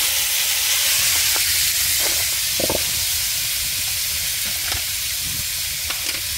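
Salmon frying in a pan: a steady sizzle with a few scattered pops and crackles, slowly dying down.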